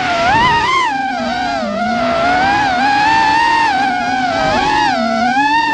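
Racing FPV quadcopter's brushless motors and propellers whining loudly, the pitch rising and falling continually with the throttle as it flies.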